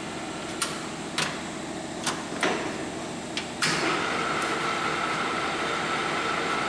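Takisawa TSL-800D engine lathe changing spindle speed: several sharp clicks and clunks of its controls, then about three and a half seconds in the spindle comes up to a higher speed and runs louder with a steady high whine.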